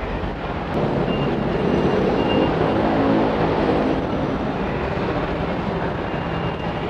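MRT train running through the station: a steady rumble that swells about a second in, with motor tones rising above it, and eases after about four seconds.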